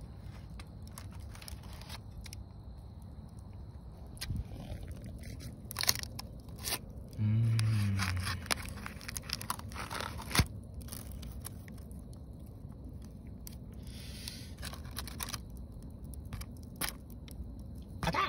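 Cast-iron Dutch oven being opened with a lid lifter and the bread inside uncovered: scattered metal scrapes and sharp clicks, with crinkling parchment paper. About seven seconds in comes a brief low hum, the loudest sound.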